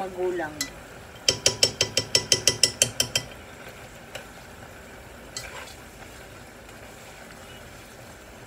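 Metal spoon stirring in a granite-coated pot, clinking quickly against the pot about eight times a second for roughly two seconds, followed by a couple of single light knocks.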